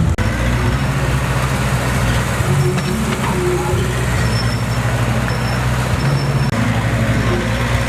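Diesel engine of heavy earth-moving machinery running steadily, with two very brief dropouts.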